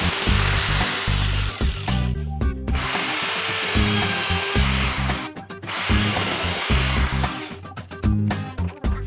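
A power tool running in three bursts of about two seconds each, stopping briefly between them, over background music with a bass line.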